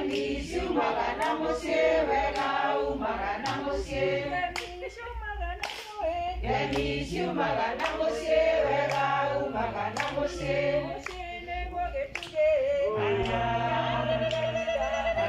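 A group of men and women singing together unaccompanied, with hand-clapping.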